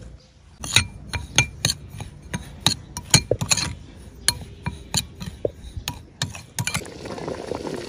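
Metal spoon clinking and scraping against a bowl while stirring a dry seasoning mix, in irregular sharp taps about two or three a second. Near the end the taps stop and a pot of liquid boiling takes over.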